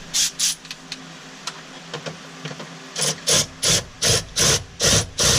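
Cordless torque-limiting power driver run in short bursts as bolts are tightened: two quick bursts at the start, then a steady run of bursts, about three a second, from about three seconds in.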